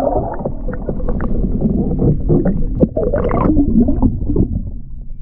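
Water splashing and sloshing beside a kayak, with short knocks of handling against the hull, over a steady low rumble of wind on the microphone.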